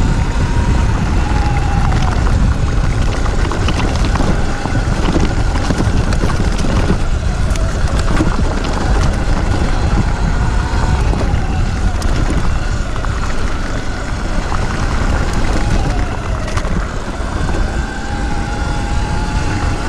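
Wind rumbling on the microphone while a Sur-Ron electric dirt bike is ridden. Its electric motor whines faintly, rising and falling with speed.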